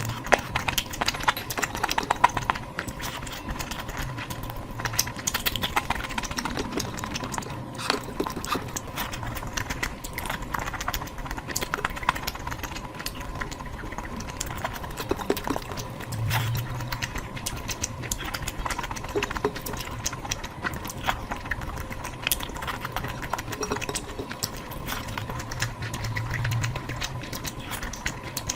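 Close-miked chewing and mouth smacking of someone taking big bites of curry, a dense irregular run of wet clicks, over a faint steady high tone.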